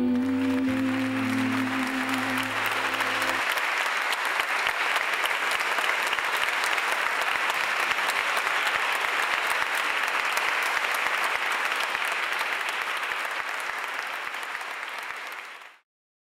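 Congregation applauding steadily, dense clapping that tapers slightly and then cuts off abruptly near the end. The last sustained notes of background music fade out under the applause in the first few seconds.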